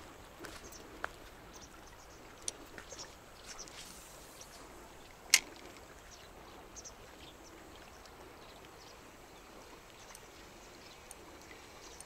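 River water running over a shallow riffle, with scattered small clicks and knocks and one sharp, loud click about five seconds in.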